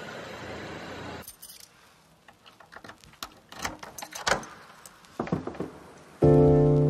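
Light, scattered jingling and clinking of small hard objects, after a short stretch of steady outdoor background noise. Near the end, background music with held chords comes in loudly.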